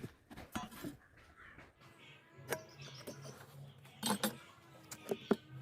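Faint scattered taps and clicks of hand tools handled against a wooden workpiece while it is being marked out, a few knocks a second apart, over a low steady hum.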